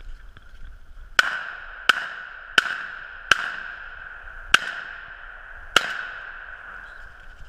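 Shotgun fired six times in quick succession, starting about a second in, with half a second to a second and a quarter between shots. Each shot is sharp and leaves a short echo trailing off.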